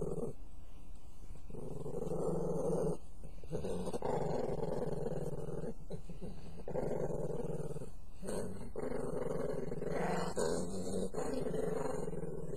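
A pet dog growling in long, low, drawn-out stretches, one after another with short breaks for breath, in protest at being dried off, which it hates.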